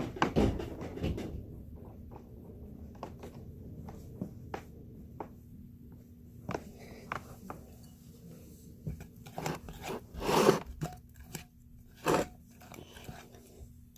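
Hands squeezing and stretching homemade slime, giving scattered small clicks and pops, with a louder, longer noise about ten seconds in.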